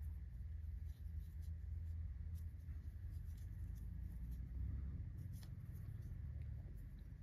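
Faint scratching and scattered light ticks of a crochet hook pulling yarn through small stitches, over a steady low hum.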